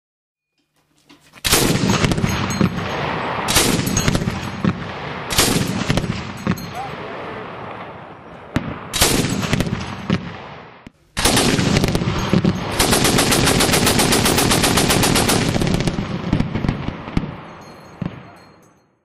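Oerlikon 20 mm cannon firing: four single shots a second or two apart, each with a long echo, then a sudden burst of rapid automatic fire lasting several seconds that dies away near the end.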